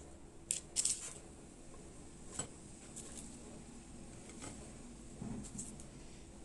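Soft crackles and light taps of crusty baked börek rolls being lifted from a parchment-lined tray and set down on a ceramic plate, the loudest cluster about a second in and a few fainter ones later.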